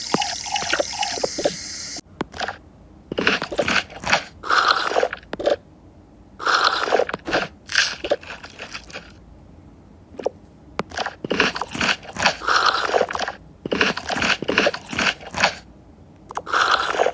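Water being poured, cutting off abruptly about two seconds in, then repeated crunchy chewing and biting: sound effects of food being eaten, in several separate bouts.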